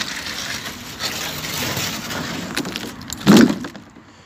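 A large metal road sign scraping as it is dragged up over a stone canal edge, with a loud bump about three seconds in as it comes onto the bank.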